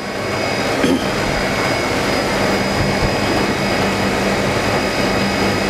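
Soft-serve ice cream machine running while dispensing into a cone: a steady mechanical noise with a low hum and a faint high whine. It swells during the first second, then holds level.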